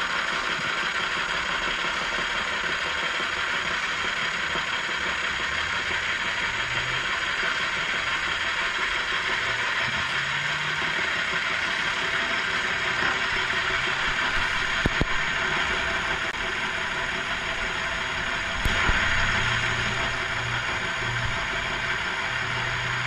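Burke horizontal milling machine running under power, its cutter taking a pass across the base of a lathe steady rest: a steady machine drone with the hiss of the cut over it. Two short sharp knocks come in the later part, the second followed by a brief louder stretch.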